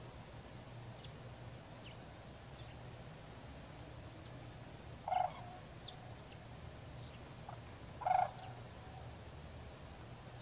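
White-naped cranes calling: two loud, short calls about three seconds apart, with faint high chirps between them over a steady low hum.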